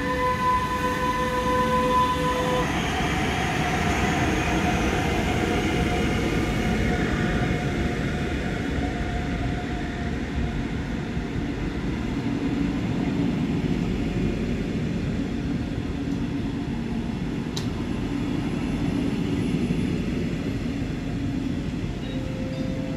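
DB class 146 electric locomotive and its double-deck coaches rolling past close by. A steady electric whine from the locomotive drops in pitch about two and a half seconds in and fades away over the next several seconds. A continuous rumble of wheels on the rails carries on as the coaches pass.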